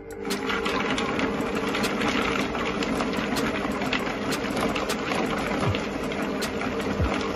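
ThermoCook Pro M 2.0 multi-cooker's motor and blade starting up and blending hot cashews and tomatoes at speed 4: a steady motor hum with irregular clicks and ticks over it.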